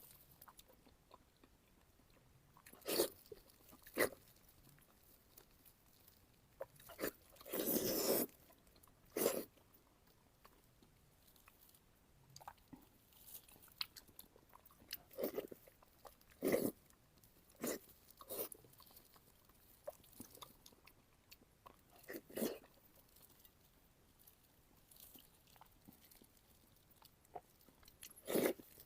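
Close-miked eating: a person biting and chewing food in separate short bursts with pauses between, about a dozen in all, the longest about a second long.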